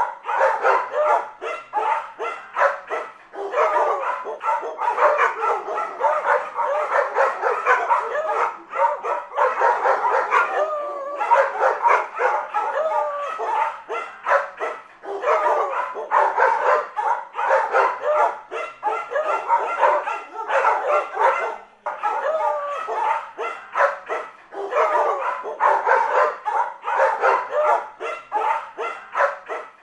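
Dog barking and yapping almost without pause: quick, fairly high-pitched barks, several a second.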